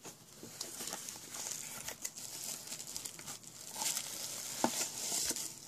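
Bubble wrap and cardboard packaging crinkling and rustling as it is handled, with a few light clicks in the second half.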